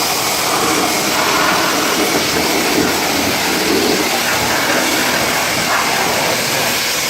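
Car wash pressure-washer wand spraying a steady high-pressure jet of water, an even, unbroken hiss.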